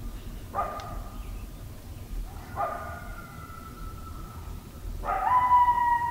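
Coyotes barking and yipping, then breaking into long, slightly falling howls. The loudest howl starts about five seconds in.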